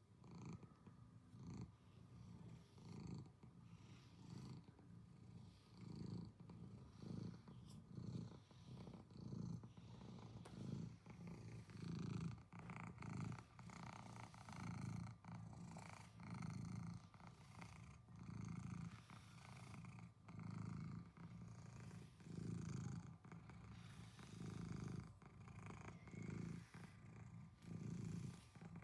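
Domestic cat purring steadily, the purr swelling and fading about once a second with its breathing, as it is brushed.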